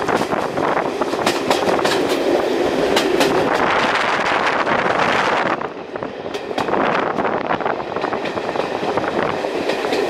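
Passenger carriage of a locomotive-hauled heritage train running along the line, heard from inside: a steady wheel-and-rail rumble with repeated clicks over the rail joints. The noise eases briefly about six seconds in.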